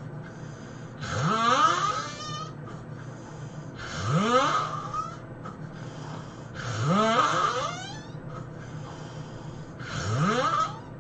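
A man snoring loudly, four snores about three seconds apart, each rising steeply in pitch to a high squeal.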